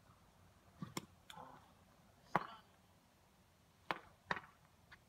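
Several sharp, hollow knocks of a plastic whiffle ball bat against the ball and the ground, the loudest a little over two seconds in.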